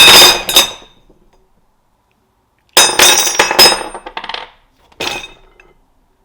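Metal pieces clanking and clinking against each other with a short ringing, in three bursts: one right at the start, a longer clatter a little before the middle, and a single one about five seconds in.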